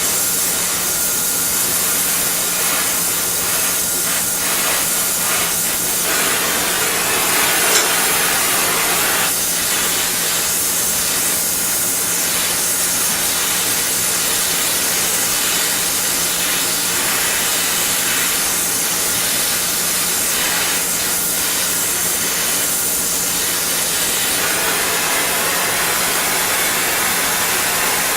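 Gas torch with a small No. 2 tip burning with a steady hiss while it heats steel clamp parts, over the low drone of a fan.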